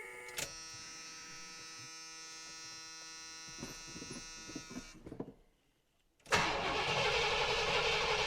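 A steady electric warning buzzer sounds for about four and a half seconds and then stops. After a brief gap, the 1976 Cadillac Eldorado's 500 cubic-inch V8 is running steadily, just after its first start of the year.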